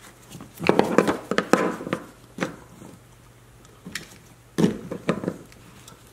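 Metal pry tool and wrench scraping and clicking against the base of a wiper arm on its pivot spindle as the tight arm is levered. There are short clusters of clicks and scrapes about a second in, around two and a half seconds, and again near four and five seconds, over a faint steady low hum.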